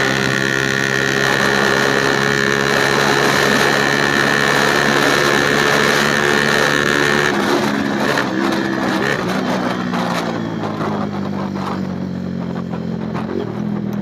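Infinity 150cc motorcycle engine running steadily under way, with a rush of wind. From about seven seconds in, the engine pitch falls in steps and the wind noise dies away as the bike slows.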